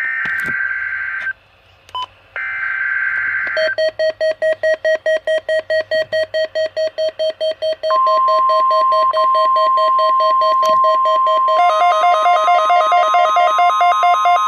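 NOAA Weather Radio SAME alert header bursts, a raspy digital warble, twice. Then a Midland WR120 weather radio's alarm siren beeps about five times a second, signalling a received Required Weekly Test. About eight seconds in the broadcast's steady 1050 Hz warning alarm tone joins, and near the end the radio's alarm switches to a faster two-pitch warble.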